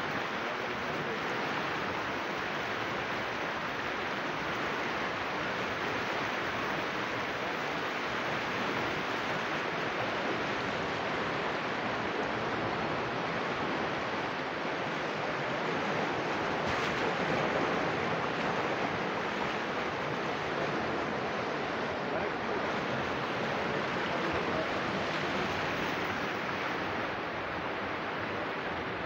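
Fast river floodwater churning and surging: a steady rush of water.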